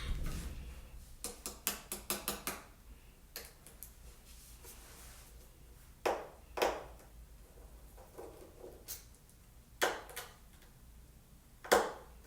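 Hands handling computer parts and tools: a quick run of small clicks in the first couple of seconds, then four louder separate knocks spread through the rest.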